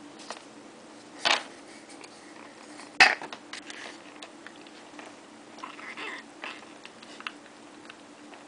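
Kitten eating, with small eating noises and a brief run of little vocal sounds about six seconds in. Two sharp knocks, the louder one about three seconds in, and scattered small clicks come from the food and cup on the floor.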